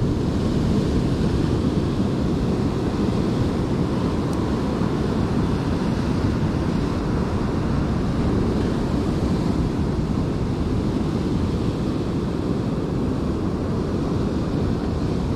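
Ocean surf washing and breaking over a rocky shore, with wind rumbling on the microphone; a steady, unbroken wash of noise.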